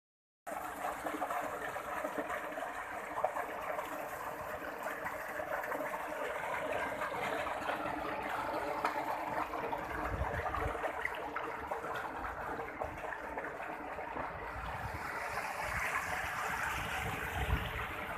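Water from a tubewell pump outlet gushing into a concrete tank and running off along an open channel: a steady rush and splash.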